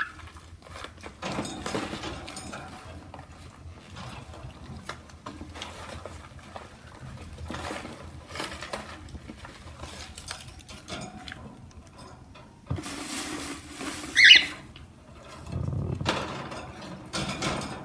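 Magazines and paper lining a cockatiel cage being gathered up, rustling and crinkling with small knocks. Late on, a louder stretch of rustling carries one short, high, rising chirp, the loudest sound here, from a cockatiel.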